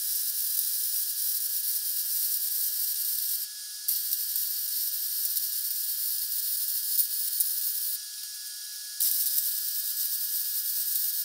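Hobart Handler 190 MIG welder running a bead on steel, with a steady crackling hiss from the arc. The arc stops twice: briefly about three and a half seconds in, and for about a second around eight seconds in, then strikes up again.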